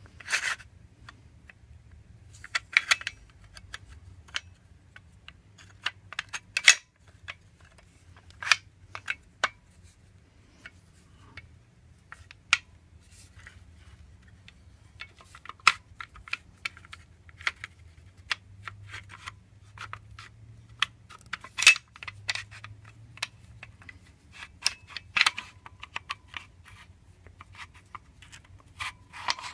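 Metal parts of a Kel-Tec RFB rifle clicking, knocking and scraping as the bolt carrier is worked onto the action to line up its grooves. The clicks come irregularly, a few of them sharp and loud.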